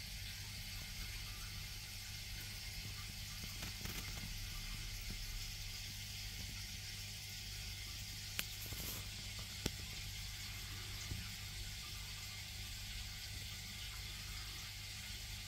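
Aquarium filter running: a steady low hum with faint water noise, and a few sharp clicks a little past the middle.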